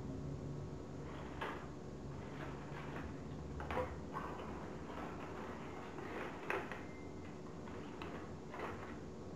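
Folded paper origami modules being handled and set down on a tabletop: several short crisp paper rustles and light taps, over a faint steady hum.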